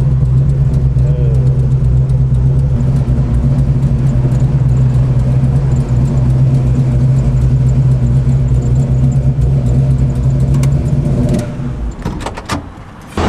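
Chevrolet 502 big-block V8, fitted with a performance cam and an alien intake manifold, running under way at a steady pitch. Near the end it drops away quieter, with a few clicks.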